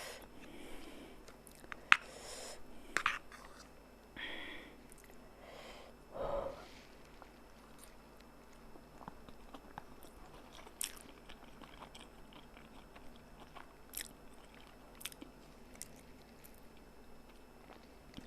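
A person chewing a mouthful of noodles close to the microphone. Scattered small wet mouth clicks come throughout, with a few short, louder noises in the first seven seconds.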